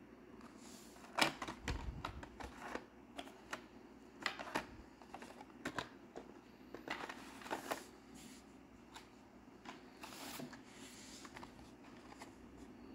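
Plastic blister packs on cardboard Hot Wheels cards being handled and shuffled, giving irregular clicks, crinkles and brief rustles, the loudest a little over a second in.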